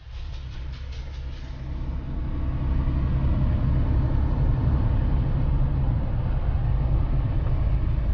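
Freightliner semi-truck's engine and tyres droning steadily inside the cab while cruising at highway speed, fading up over the first couple of seconds. There is a light, quick ticking in the first second.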